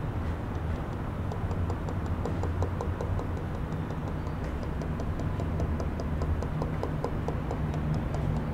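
Aquarium aeration: a steady low hum with air bubbling from airline tubing and sponge filters. From about a second in there is a fast, even ticking, about five ticks a second.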